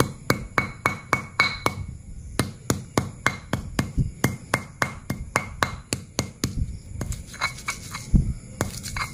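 Stone pestle pounding a lemongrass stalk into mashed tempe in a stone mortar (Indonesian cobek and ulekan), crushing it. A steady run of sharp knocks, about three a second.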